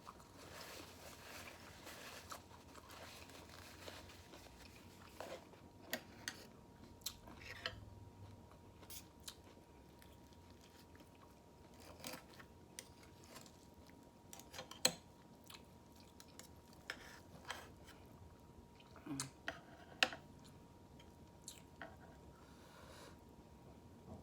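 Close-up eating sounds: a person chewing and biting food, with scattered sharp clicks and ticks, the loudest about 15 and 20 seconds in.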